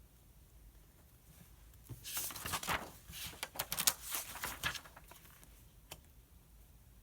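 Paper rustling as a page is turned over: a few seconds of crisp, crackling rustles starting about two seconds in, then a single faint click near the end.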